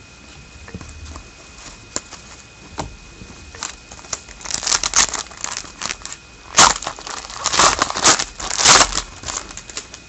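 Foil trading-card pack wrapper being crinkled and torn open, first with a few scattered crackles, then a dense burst of crinkling from about four seconds in.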